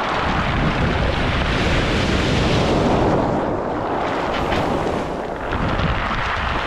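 Waves surging up and drawing back over a beach of rounded stones, with the stones clattering and rattling against each other in the wash. The surge swells to a peak about three seconds in, with wind buffeting the microphone.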